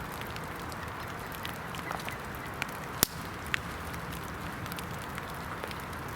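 Steady hiss of rain with scattered sharp snaps, the loudest about three seconds in and another half a second after.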